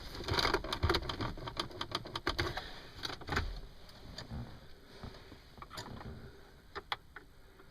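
Rapid clicks and taps of hands handling plastic dashboard trim around the instrument bezel, dense for the first few seconds, then sparse single clicks.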